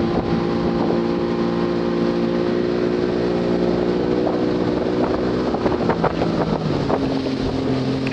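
Motorboat engine running at a steady pitch, then throttled back about six to seven seconds in so its pitch steps down, with wind buffeting the microphone.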